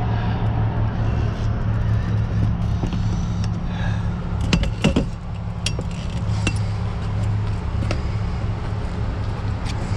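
A heavy tow truck's engine idling steadily, with a few sharp metal clanks about halfway through and lighter clinks here and there, typical of tow chains being handled.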